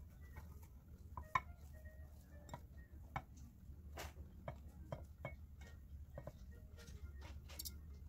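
Faint, scattered light taps and rustles of grated zucchini being dropped and pressed into a plastic measuring cup, over a low steady hum.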